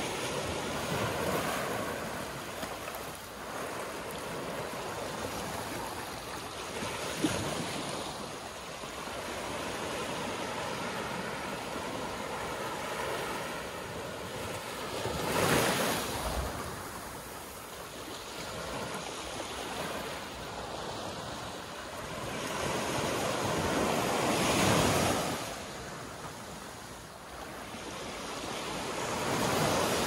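Small ocean waves breaking and washing up a sandy beach, the foaming water hissing up the shore and draining back in slow surges, with louder washes about halfway through and near the end. One brief sharp click about seven seconds in.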